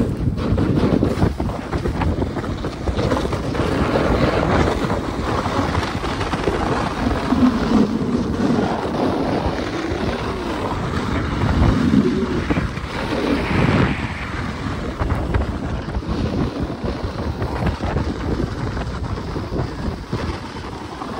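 Wind rushing over the microphone, a steady dense noise heaviest in the low range, with a few slow surges.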